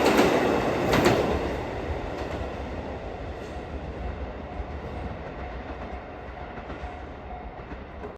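A train passing a level crossing, its wheels clacking over the rail joints in the first second or so, then the rumble fading steadily as it moves away.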